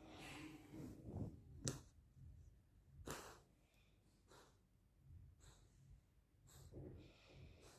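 Golden retriever snoring faintly in its sleep: airy breaths and small snorts at uneven intervals, with one sharp click a little under two seconds in.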